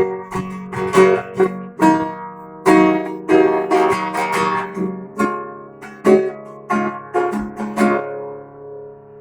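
Acoustic guitar strummed in an instrumental break between sung verses, its chords ringing, with the strumming easing off near the end.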